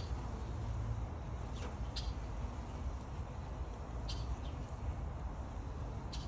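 Birds chirping outdoors: a few short, high calls about a second or two apart over a steady low rumble.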